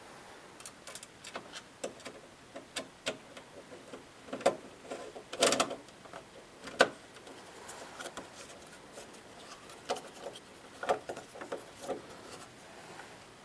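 Irregular clicks, taps and knocks of hard objects being handled, with a few louder knocks about halfway through.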